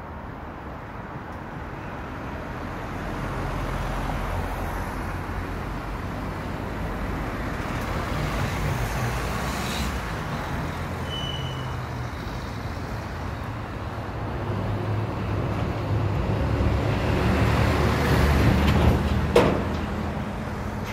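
Road traffic passing, a steady rumble of engines and tyres that swells louder twice as vehicles go by, the second and louder pass near the end. A brief high squeak about eleven seconds in, and a sharp clack near the end, the loudest single sound.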